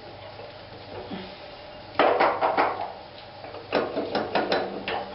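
Metal parts clinking and knocking together in two quick clusters, one about two seconds in and a longer one near the end, as the rear axle assembly of a lawn tractor is fitted back into place.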